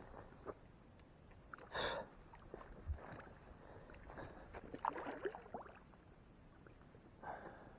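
Faint water splashes and small knocks while a landed carp is being handled, with a short louder burst about two seconds in.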